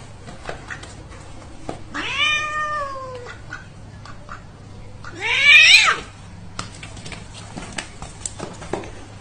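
Tabby house cat meowing twice: a drawn-out call about two seconds in that sags in pitch at the end, then a louder call about five seconds in that rises in pitch. Light taps and scuffles in between.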